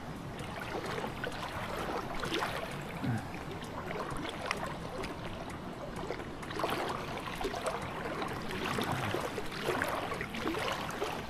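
Water lapping and trickling close by, broken by scattered small splashes and knocks.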